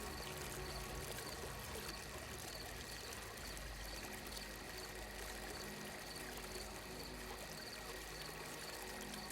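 Ambient sleep soundscape of steadily flowing water over a soft low drone, with faint high chirps about once a second.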